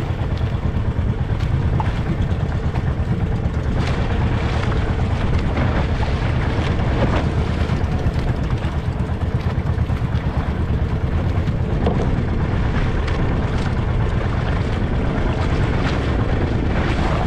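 Small motorized outrigger boat's engine running steadily under way, a constant low drone, with wind and rushing water around the hull.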